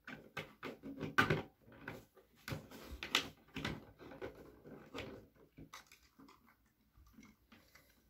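Irregular small plastic clicks and rustles of hands working at a hardwired smoke detector's ceiling mounting plate and wiring, as a loose wire is worked back into place. They grow sparser after about six seconds.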